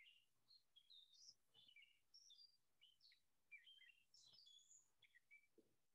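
Near silence, with faint songbird chirps and tweets scattered throughout.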